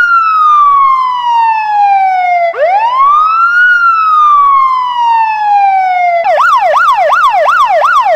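Electronic ambulance siren sounding a slow wail, rising quickly and falling away over about three seconds, twice. About six seconds in it switches to a fast yelp of rapid up-and-down sweeps, about three a second.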